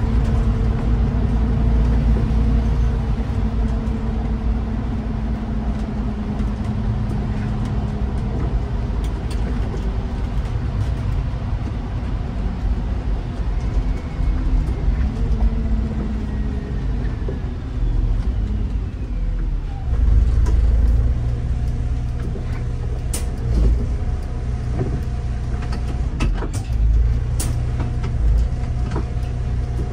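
City bus driving along with a steady low rumble of engine and road noise. A hum fades about midway, and a few sharp clicks and rattles come near the end.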